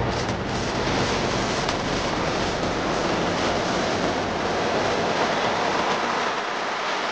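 Steady wind rush on the microphone of a Suzuki Gixxer 250 motorcycle ridden at high speed.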